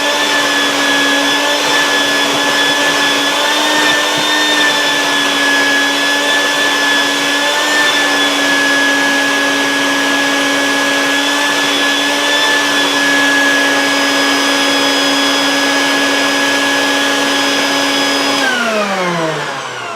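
An electric motor running at a steady speed with a constant whine, then switched off near the end, its pitch falling as it winds down.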